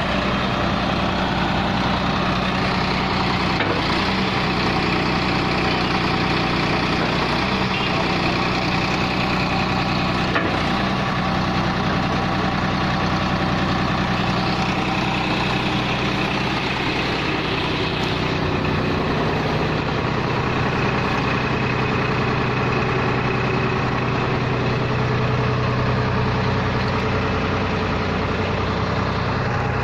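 Tractor diesel engine running steadily with a backhoe loader fitted. Its engine note shifts lower about two-thirds of the way through, as the load on it changes.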